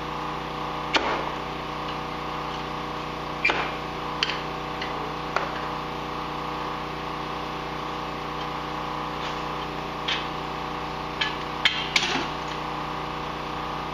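Scattered sharp metallic clicks and clanks as the exhaust springs are unhooked from the muffler of an Arctic Cat F-series snowmobile with a spring hook. The clanks are loudest in a quick cluster near the end, over a steady background hum.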